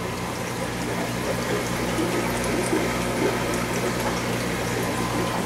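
Aquarium water bubbling and trickling from air-driven filtration, steady and unbroken, over a steady low hum.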